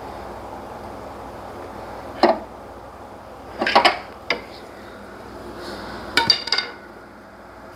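Metal hand tools clinking and clanking against metal in a few separate bursts: one a couple of seconds in, a cluster around the middle, and another cluster near the end.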